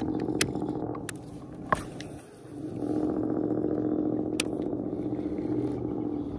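Baitcasting reel being cranked, a steady gear whir in two stretches with a short break about two seconds in. A few sharp clicks of handling fall over it.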